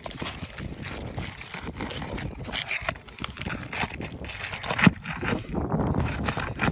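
Weathered asphalt roof shingles being pried and worked loose: irregular scraping, crackling and tearing, with a sharp knock about five seconds in. The shingles are brittle and falling apart as they come up.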